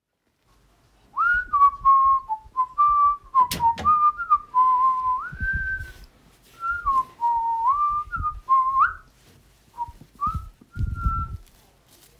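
A person whistling a tune, a single clear note stepping up and down in pitch, starting about a second in and pausing briefly now and then. Low thumps sound beneath it, from steps or handling.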